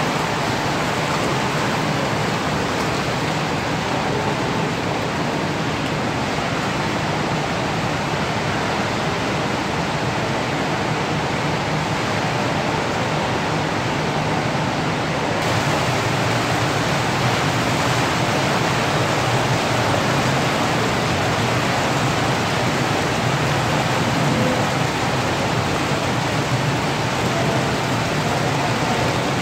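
Rainbow trout splashing and churning at the surface of a fish-farm tank as they feed, a steady mass of water splashing without pause.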